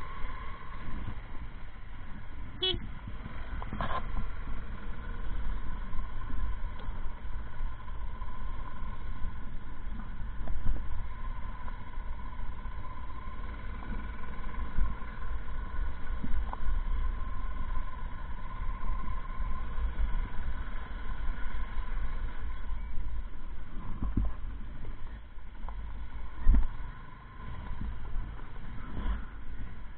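Motorcycle running while riding over rough ground, a steady low rumble with a steady engine tone. Several knocks from bumps, the loudest a little before the end.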